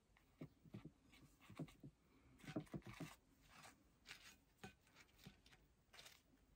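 Faint clicks and scrapes of chopsticks prodding and lifting crisp pan-fried aburaage (fried tofu) on a plate of stir-fried udon, in short clusters, busiest about halfway through.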